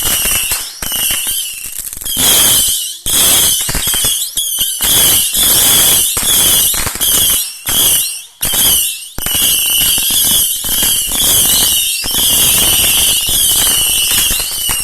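A 300-shot whistler firework going off: a loud, near-continuous stream of shrill overlapping whistles with cracks, broken only by brief gaps.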